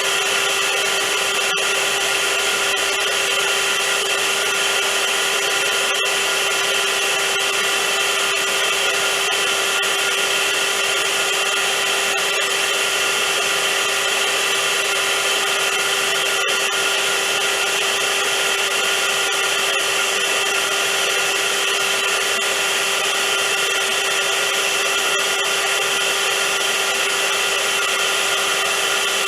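Vacuum cleaner running continuously: a steady rush of air with a constant motor whine, unchanging throughout.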